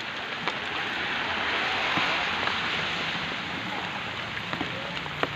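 Steady rain falling: an even hiss with scattered drop ticks, swelling for a moment around the middle.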